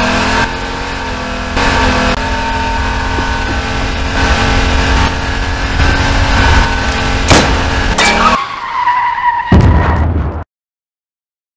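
Sound effect of a military jeep driving, its engine running with tyre skids. Two sharp knocks come about seven and eight seconds in, and the sound cuts off suddenly near the end.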